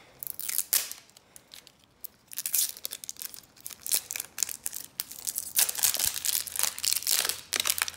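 Plastic film and foil-paper wrapping of an LOL Surprise ball being peeled and torn off by hand: irregular crinkling and tearing. It is sparse for the first couple of seconds and turns dense and continuous from about two and a half seconds in.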